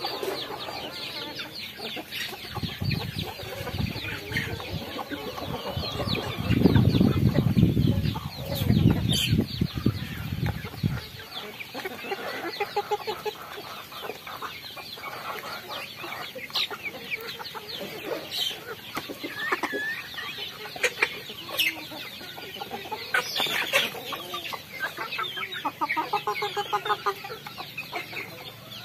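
A flock of chickens clucking as they feed together, with many short overlapping calls throughout. A low rumbling noise runs under the first ten seconds or so, loudest a little past a third of the way in, then stops.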